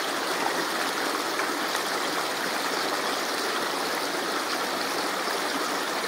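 Mountain river water rushing, a steady, even flow.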